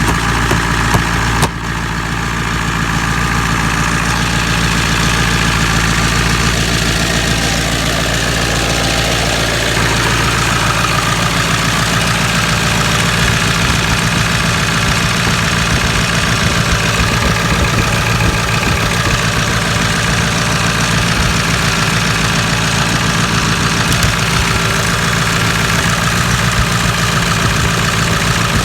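Car engine idling cold after a cold start in 22-degree weather, with a brief dip and change in its note about a second and a half in, then running steadily.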